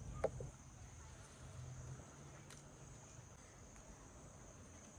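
Faint, steady high-pitched drone of insects, over a low hum, with a short click about a quarter second in and a fainter tick about halfway through.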